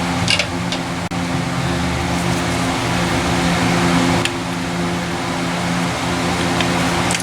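Steady mechanical hum of a running fan or blower, holding a few level tones, with a few light clicks at about a third of a second in, about four seconds in and near the end.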